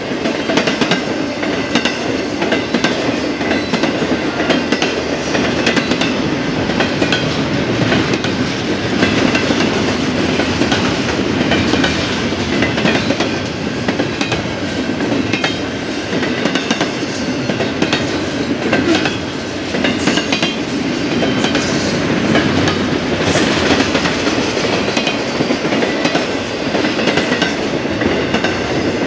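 BNSF freight train's cars rolling past at speed: a steady rumble with the wheels clacking over the rail joints.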